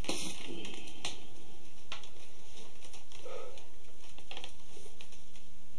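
Steady recording hiss and low electrical hum, with a few scattered light clicks and soft rustles.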